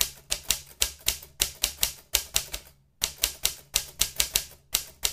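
Typing on a keyboard: quick runs of key clicks, about four or five a second, with two short pauses.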